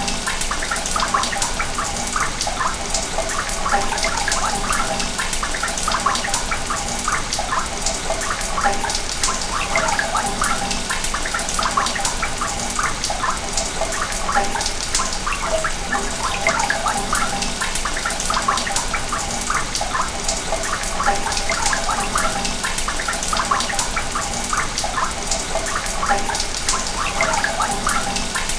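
Sewage water running through a pipe: a steady rushing flow with constant small gurgles and bubbles.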